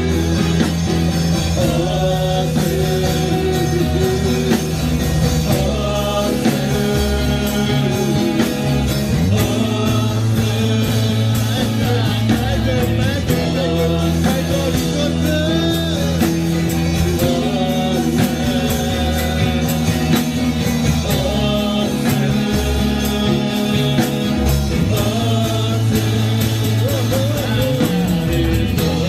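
Gospel worship music played by a band with drums and bass, with singing over it.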